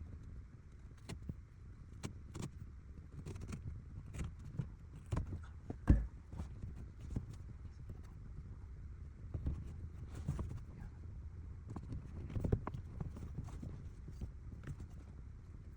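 Scattered clicks, knocks and rustles of hands and a tool working at the floor carpet and trim inside a car, with one louder thump about six seconds in.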